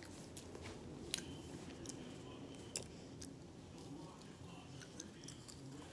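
Faint, scattered clicks and soft rustling of popcorn being picked up with the tongue from a glass bowl, the clearest click about a second in.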